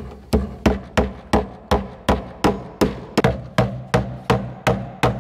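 Hammer blows into a wooden wall stud, a quick steady run of about three sharp strikes a second, each with a short ring.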